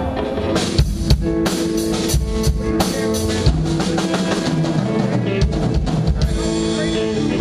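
Live band playing a rock song without vocals: a drum kit with bass drum and sharp snare and cymbal hits, over held guitar and bass notes.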